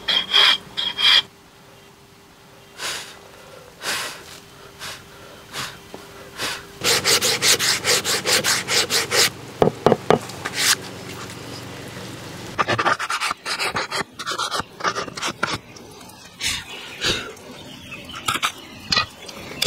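Wooden hand plane shaving a round wooden rod: bursts of quick scraping strokes, several a second, with pauses between them. The strokes are lighter and fainter in the second half.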